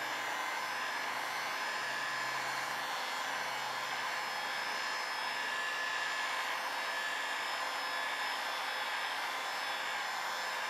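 Electric heat gun running steadily: an even rush of blowing air with faint steady whistling tones in it, warming headlight protection film.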